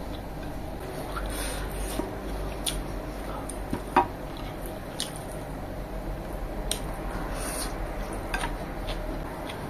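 Close-up eating sounds: rice and curry mixed and eaten by hand, with chewing, squishing and scattered short clicks and taps on the plate, the sharpest about four seconds in. A steady low hum runs underneath.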